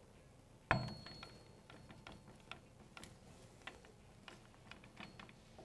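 Light metallic clicks and ticks of gear teeth as the clutch basket of a KTM 690 / Husqvarna 701 LC4 engine is rotated and pressed into mesh with the primary drive and idler gears. A sharper clack comes less than a second in, and fainter irregular clicks follow.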